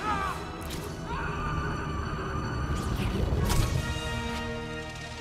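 Film action soundtrack: dramatic music under whooshing swing effects, with a heavy crash-like hit about three and a half seconds in.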